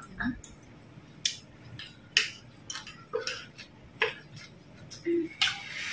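Metal spoons clinking and scraping against plates and bowls as people eat: a scattered series of light, irregular clicks.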